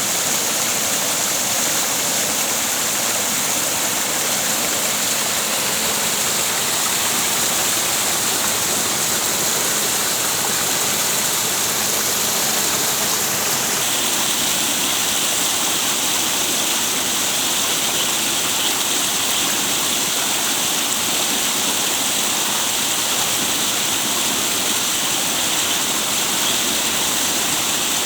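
Steady rushing water, loud and even throughout, with a slight change in tone about halfway through.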